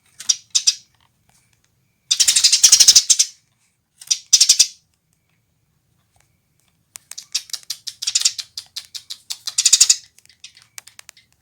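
Female Eurasian tree sparrow chattering in fast, dry runs of high chirps. There is a burst about two seconds in, a short one around four seconds, and a longer run from about seven to ten seconds, with quiet gaps between them.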